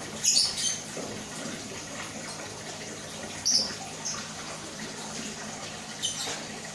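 Pair of lovebirds giving a few short, high-pitched chirps: two close together at the start, one about three and a half seconds in, and one near the end.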